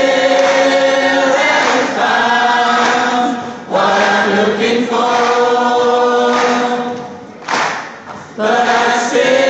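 Choir singing long held chords in phrases of a second or two, with a short break about three-quarters of the way through.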